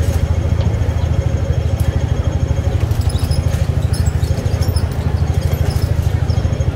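Hong Kong double-decker tram running slowly, heard from its upper deck: a loud, steady low rumble that pulses rapidly, with faint higher ticks about three to four seconds in.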